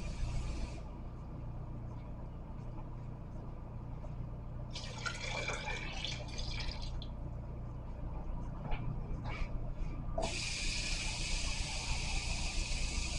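Kitchen tap running, shut off about a second in. Around five seconds in, water is poured into a slow cooker crock with a few clinks of the bowl against it. The tap runs again from about ten seconds in.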